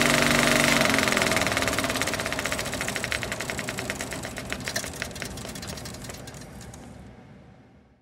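35 mm film projector shutting down: its motor hum stops about a second in, and the rapid clicking of its mechanism fades away to nothing near the end.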